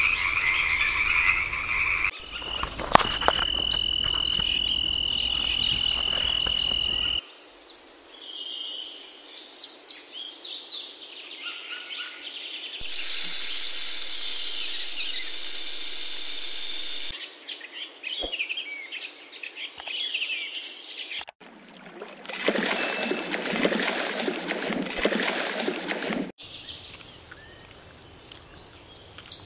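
A frog croaking for about the first two seconds, then a string of different outdoor nature sounds that change abruptly every few seconds.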